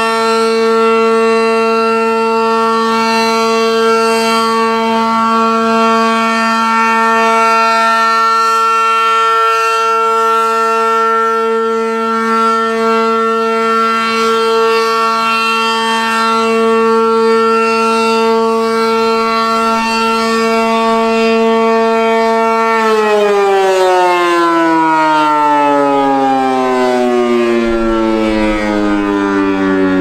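ACA Allertor 125 (8/12) outdoor warning siren sounding its steady alert signal: one held tone with many overtones. About three-quarters of the way through, the one-minute alert ends and the siren winds down, its pitch falling steadily.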